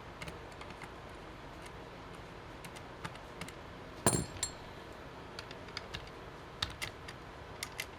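Scattered light clicks and taps of small hard objects being handled, with one sharp metallic clink about four seconds in.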